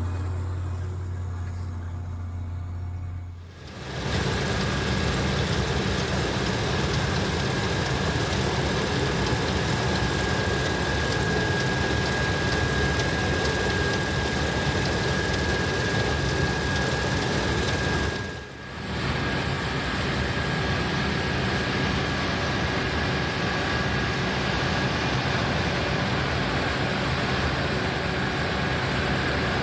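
Large farm tractor's diesel engine running steadily, with a constant high whine over the engine noise. The sound drops out briefly twice where the footage cuts, about 3.5 seconds in and again past the midpoint.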